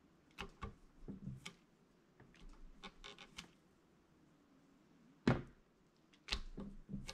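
Scattered light taps and clicks of craft tools and stamps being handled on a tabletop, with one sharper knock about five seconds in and a quick cluster of knocks near the end.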